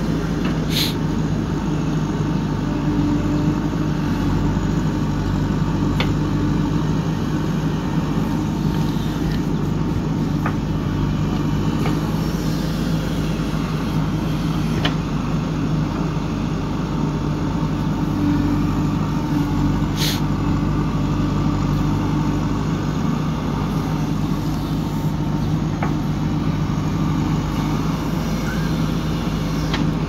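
JCB 3DX backhoe loader's diesel engine running steadily while the backhoe digs soil, its tone rising slightly for a few seconds at a time. A few sharp clanks break through, the loudest about a second in and at about twenty seconds.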